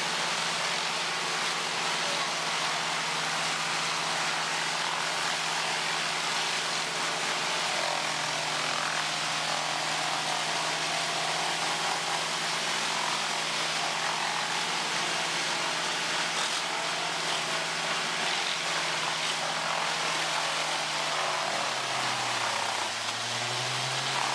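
Heavy machinery engine running steadily under load, with a constant rushing mechanical noise. Near the end its hum dips lower in pitch.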